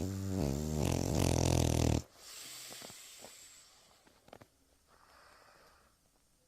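Dog snoring: one loud, buzzing snore about two seconds long that cuts off sharply, followed by a softer breathy rush of air that fades away, then a faint breath about five seconds in.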